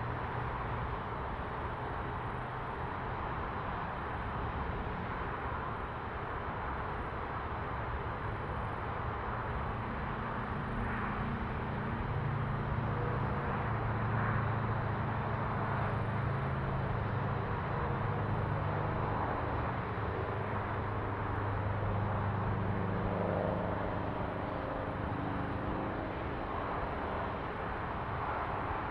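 Outdoor street ambience with steady traffic noise. A vehicle engine's low hum grows louder about a third of the way in, holds for several seconds, then fades.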